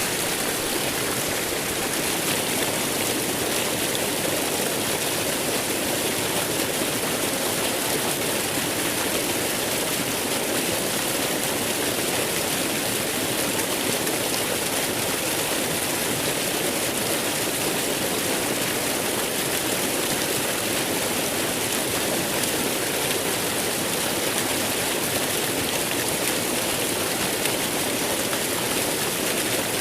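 Waterfall: a steady, unbroken rush of falling water with a strong hiss in the highs.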